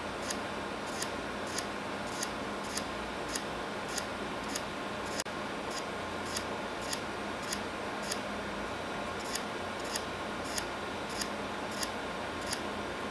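Scissors snipping in a steady rhythm, a short snip roughly every 0.6 seconds, over a steady hiss.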